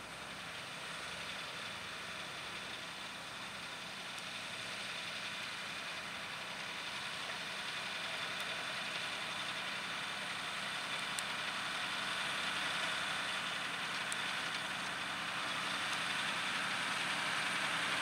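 John Deere 6R 215 tractor's six-cylinder diesel engine running steadily under load as it pulls a five-furrow plough through the soil, growing gradually louder as the tractor draws nearer.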